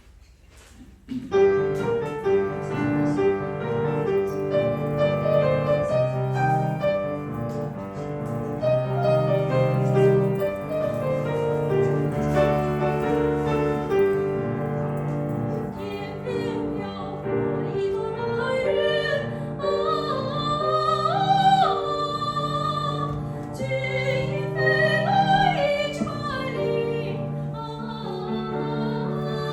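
Piano accompaniment starts about a second in, playing the introduction of a Chinese song in operatic style. About halfway through, a soprano voice comes in singing over it with vibrato.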